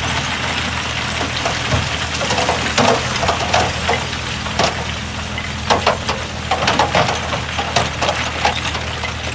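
Shantui DH17C2 bulldozer's diesel engine running steadily under work, with irregular sharp clanks and cracks over it from about two seconds in.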